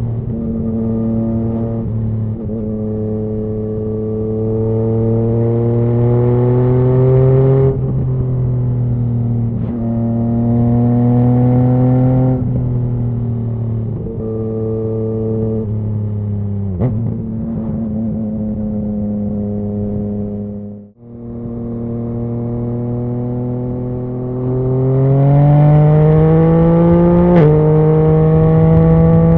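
2019 Yamaha MT-09's inline three-cylinder engine through a Scorpion Serket carbon full exhaust, accelerating hard through the gears. The engine note climbs steadily, then drops suddenly at three quickshifter upshifts, with a sharp crack from the exhaust at a shift. It dips out briefly about two-thirds through, then climbs again, with another crack near the end.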